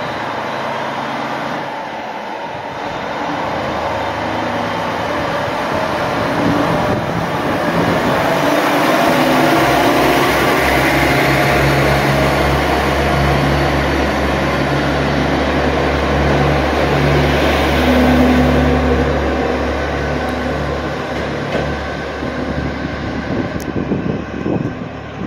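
Two-car diesel railcar pulling out and passing close by: the diesel engine runs under load with a steady low throb over the rumble of the train rolling on the track, loudest about halfway through, then fading as the cars draw away.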